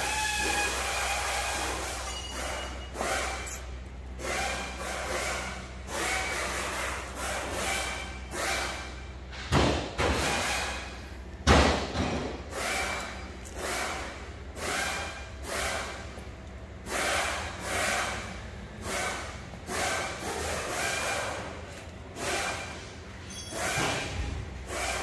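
Repeated rasping strokes about once a second, with a faint ringing in each, over a steady low hum; two heavy thumps land about ten and twelve seconds in.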